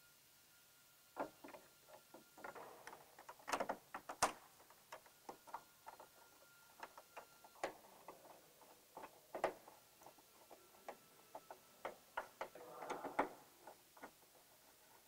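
Faint, irregular clicks and taps of hand assembly work: a hex driver turning bolts and plastic fairing panels being handled and fitted on a motorcycle.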